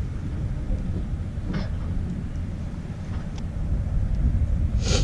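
Wind buffeting an action camera's microphone: a steady low rumble, with a short rushing hiss near the end.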